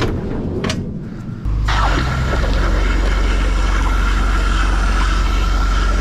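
A pressure washer (drain jetter) starts up about a second and a half in and runs steadily, a loud, even hum with a steady whine over rushing noise, after a few short knocks of handling.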